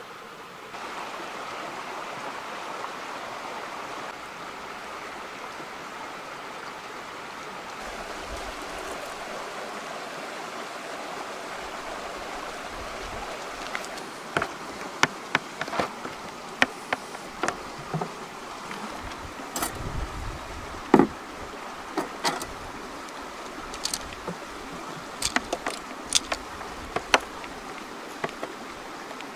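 Sharp clicks and knocks of the black latches on a Petromax kx25 coolbox being worked by hand and the box handled, starting about halfway through, over a steady background hiss.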